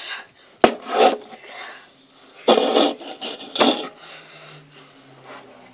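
Several short bursts of rasping, rubbing noise close to the microphone, with a sharp click just over half a second in.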